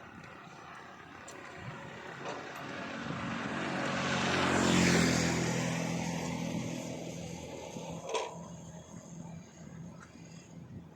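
A passing motor engine grows louder to a peak about five seconds in, then fades away, its pitch dropping as it goes by. A short knock comes near the end.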